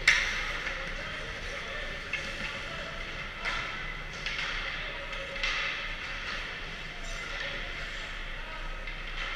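Ice hockey practice on rink ice: a sharp crack of a puck or stick impact at the start, with a short echoing tail, then skate blades scraping the ice in several swishes over a steady rink din.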